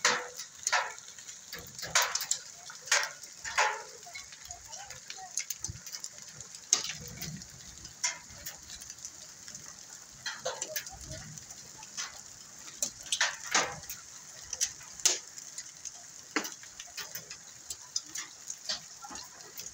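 Heavy rain and hail falling: a steady hiss of rain with irregular sharp knocks of hailstones striking hard surfaces, several loud.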